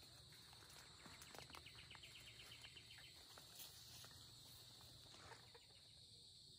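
Faint outdoor ambience in tropical undergrowth: a steady high insect drone, with scattered soft rustles and footsteps through leaves and grass. A brief rapid chirring trill comes about a second and a half in.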